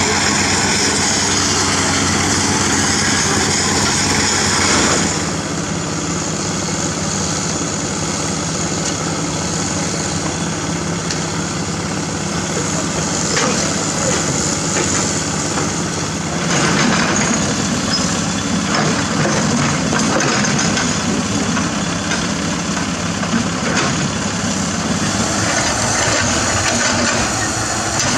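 Komatsu PC200 hydraulic excavator's diesel engine running steadily as it digs, with a few short knocks of the bucket against rock.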